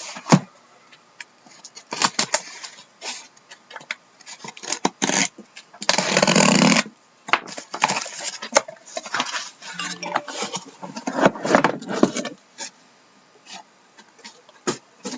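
Packaging of a sealed case of trading-card boxes being handled and opened by hand: scattered clicks, knocks and rustling, with a loud rasping noise for about a second about six seconds in.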